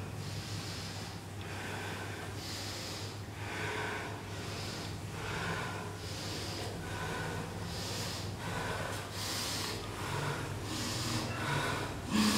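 A person breathing heavily and audibly, in rhythmic puffs a little more than once a second, over a steady low hum.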